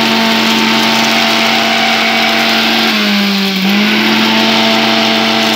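Electric mixer grinder (mixie) running loud and steady, dry-grinding roasted whole spices into powder for garam masala. The motor's pitch dips briefly about three seconds in, then recovers.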